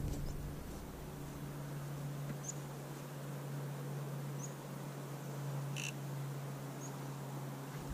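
A steady low hum with about four short, high chirps from a small bird, spaced roughly two seconds apart, and a brief click about three-quarters of the way through.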